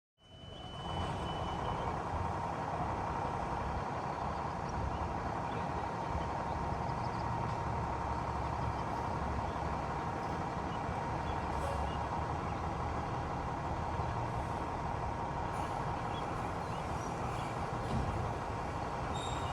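Fire truck's diesel engine running with a steady low rumble, and a constant high tone running through it.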